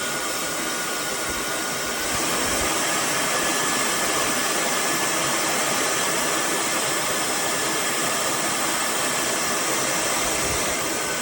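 High-speed brushless-motor hair dryer running with a steady rush of air and a faint high whine. About two seconds in it gets slightly louder and the whine steps up in pitch.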